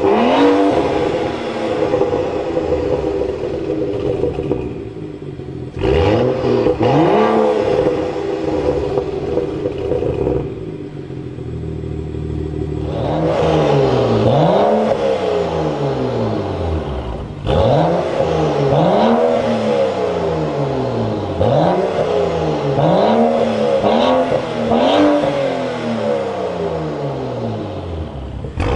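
BMW F10 535i's turbocharged 3.0-litre straight-six revved repeatedly through a Meisterschaft aftermarket exhaust, each throttle blip rising in pitch and falling back. A quieter steady idle comes about halfway, then a quick run of short blips.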